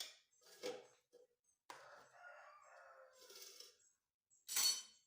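A drawn-out animal call of about two seconds in the background, followed near the end by a short, sharp clatter.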